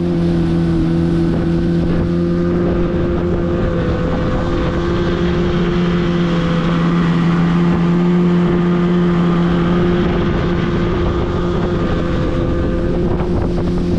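Outboard motor running at a steady speed, pushing a small aluminium fishing boat along, with water rushing past the hull and wind on the microphone.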